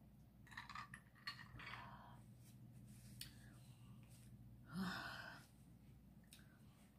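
Quiet mouth and breathing sounds after a drink of Coke from a glass: soft breathy exhales and the rustle of a paper napkin wiped across the mouth, the loudest about five seconds in.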